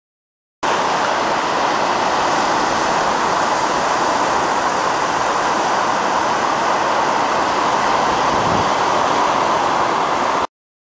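Atlantic Ocean surf breaking on a beach: a steady, even rush of water noise that starts abruptly about half a second in and cuts off abruptly near the end.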